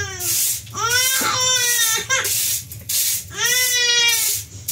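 Infant crying: a run of loud wails, each rising and then falling in pitch, with short gasps between them.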